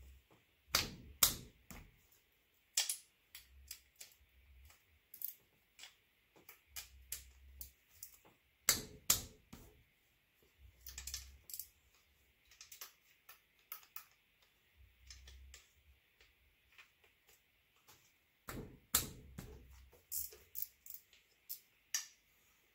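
Ratcheting gear wrench clicking in quick, irregular runs as the intake manifold bolts are loosened, with light metal taps of the tool against the engine.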